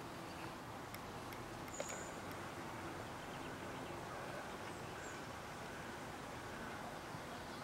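Steady outdoor background noise, with a few faint clicks and one short, high chirp about two seconds in.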